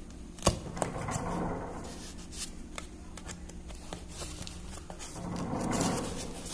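Homemade cardboard egg incubator being closed and latched shut: a few sharp clicks, then rubbing and rustling of cardboard that swells near the end, over a steady low hum.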